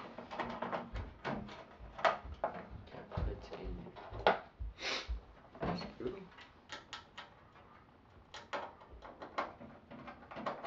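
Sheet-metal side cover of a computer tower being slid on and lined up with its screw holes: a run of sharp clicks and knocks with some scraping and a few low thumps.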